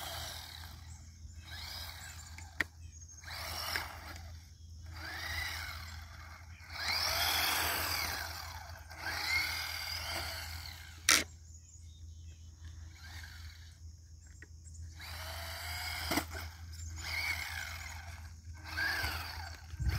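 Small electric motor of a Bezgar 1:18 scale RC truck whining up and down in repeated bursts as it speeds up and slows, with the tyres rolling on concrete. Two sharp knocks, about 3 seconds in and about 11 seconds in, the second the loudest sound.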